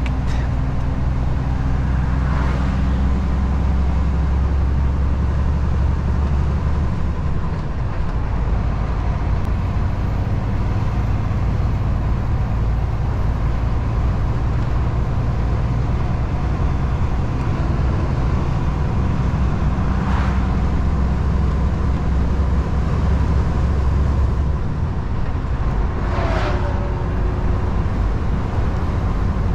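DAF XF truck's diesel engine droning steadily with tyre and road noise on the move, the engine note shifting a couple of times, with a few brief swells in the noise.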